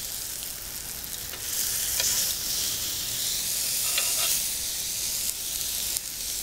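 Beef burger patties sizzling on a hot cast-iron griddle plate as they are flipped, the sizzle swelling from about a second and a half in. A few light clicks of the metal spatula and tongs on the plate.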